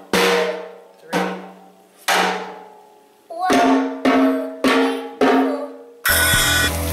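A child's drum kit (Mendini by Cecilio) struck with sticks: three hits about a second apart on a lower-pitched drum, then four quicker hits on a higher-pitched drum, each ringing out. Just before the end it cuts abruptly to steady frying sizzle from a pan of vegetables.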